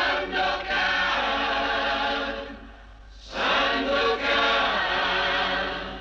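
Choir chanting in two long held phrases, with a brief drop between them about three seconds in.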